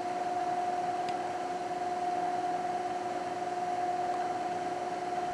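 A steady hum with a constant mid-pitched whine over an even hiss, unchanging throughout.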